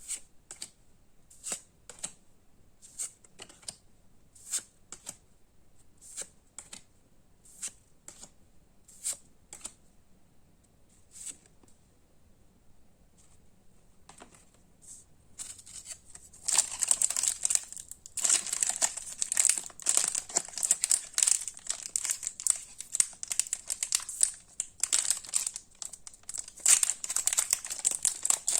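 Light, sharp clicks about once a second as trading cards are handled. Then, from a little past halfway, a loud dense crinkling and tearing of a foil booster-pack wrapper being opened.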